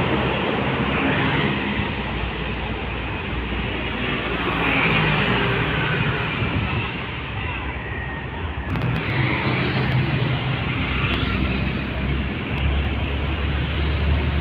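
Diesel truck engine running and tyres rolling as a container truck passes close, over steady road traffic noise. About two-thirds of the way through, the sound changes abruptly to other street traffic.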